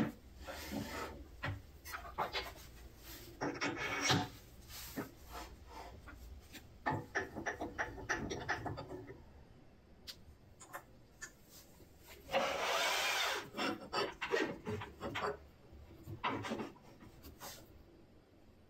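Handling sounds at a wood lathe: a square wooden block is pushed and worked onto a steel spindle in a collet chuck, with scattered clicks, knocks and rubs. There are short scrapes as the metal tailstock and tool rest are slid along the lathe bed. The longest and loudest scrape lasts about a second, a little past the middle.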